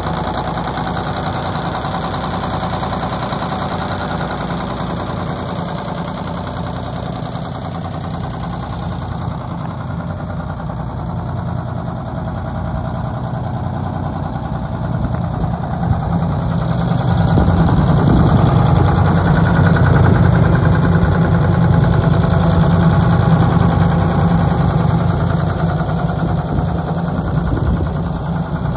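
1981 Ford 9000 grain truck's diesel engine idling steadily, freshly started. It grows louder for several seconds past the middle, then eases back.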